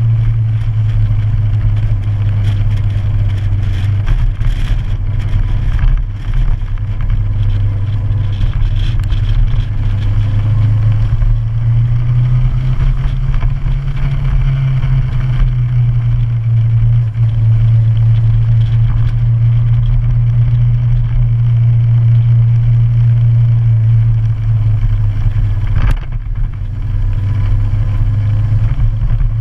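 Motorcycle engine running steadily under way, a loud low drone with slight rises and falls in pitch. There is one sharp click near the end.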